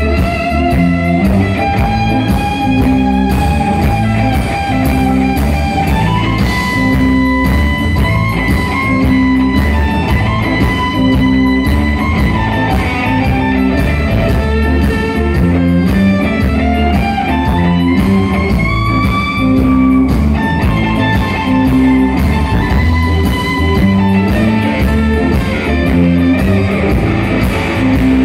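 Live blues-rock band: an electric guitar plays long sustained notes that bend up and down, over bass and drums.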